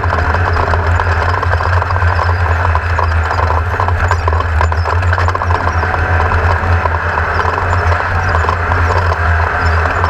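Class 1600 desert race buggy's air-cooled Volkswagen engine running steadily under way, with constant rattling and knocking from the car over rough ground.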